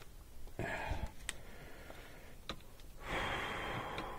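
Cordless impact driver running in two bursts, a short one about half a second in and a longer one with a thin steady whine from about three seconds, loosening the clamp bolt on the blower motor's mounting band.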